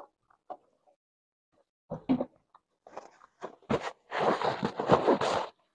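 Eating sounds at the table: bites and chewing, with scattered small clicks. About four seconds in comes a dense stretch of rustling, fitting a paper napkin being handled.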